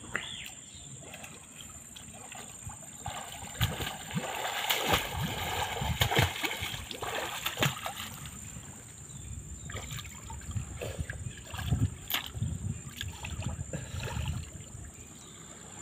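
Water splashing and sloshing as a person swims face-down through a shallow spring pool: irregular splashes of uneven strength, starting about three seconds in and dying down shortly before the end.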